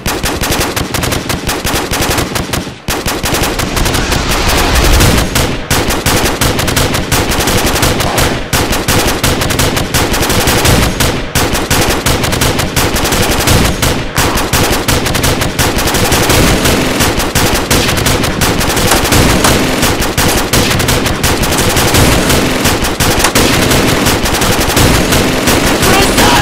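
Sustained automatic gunfire: rapid, dense volleys of shots with hardly a break, except a brief lull about three seconds in.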